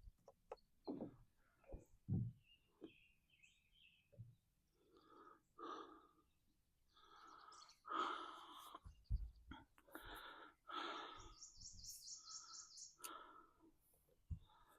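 Quiet, with a person's heavy, congested breathing: chest congestion and bronchitis. Faint birds chirp a few seconds in, and a quick high trill comes near the end.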